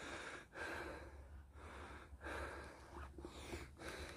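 A hiker breathing hard and fast after a steep climb, soft breaths following each other about every half second to a second, over a low wind rumble on the microphone.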